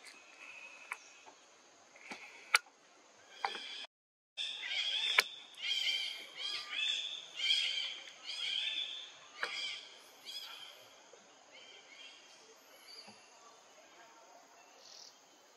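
A run of high-pitched animal calls, about a dozen short squeals rising and falling over some six seconds, over a steady high insect whine. A couple of sharp clicks stand out, the loudest about two and a half seconds in, and the sound cuts out for a moment just before the calls begin.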